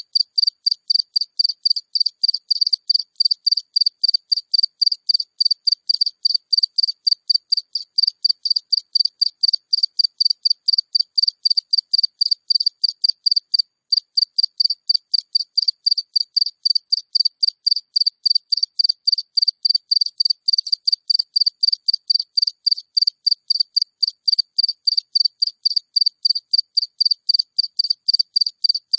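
A single cricket chirping close up: a steady, rapid train of short, high-pitched chirps, with one brief pause about fourteen seconds in.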